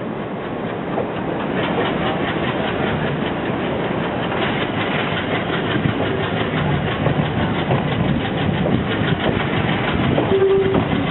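Diesel multiple-unit train running along the line, its diesel engine and wheels on the rails making a steady rattling clatter that grows gradually louder. A short higher tone sounds near the end.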